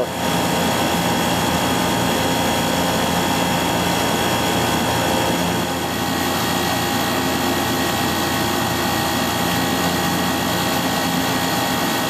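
York heat pump outdoor unit running, its compressor and condenser fan giving a steady hum and whoosh. It is the unit working with its contactor now pulled in through an added relay and transformer.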